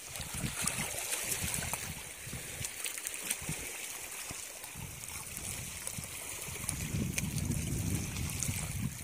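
Shallow seawater trickling and sloshing as a stick probes among the rocks and feet wade through it. A low wind rumble on the microphone grows in the last couple of seconds.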